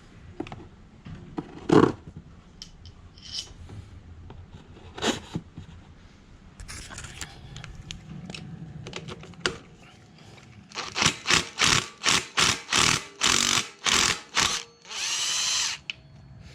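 A handheld power tool, such as a drill/driver, run in a string of short trigger pulls, about two to three a second, then held for one longer run of about a second near the end. Scattered knocks and clicks of tools being handled come before it.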